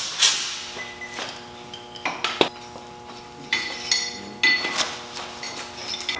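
A series of sharp metallic clinks and knocks, irregularly spaced, several leaving a brief ring.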